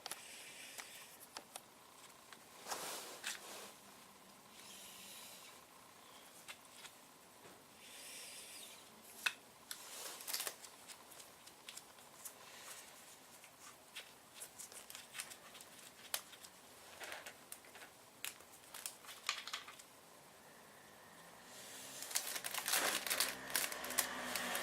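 Scattered clicks, taps and rustling from hand work with tools and parts on a motorcycle, with a denser run of scraping and clatter near the end.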